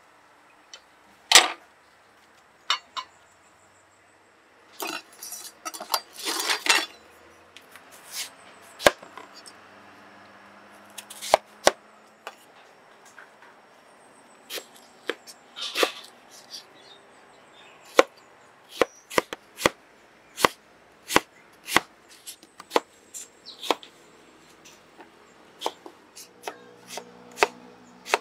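Kitchen knife cutting peeled green mango on a wooden cutting board: sharp, separate knocks of the blade through the fruit onto the board, coming in quicker runs of chops in the second half.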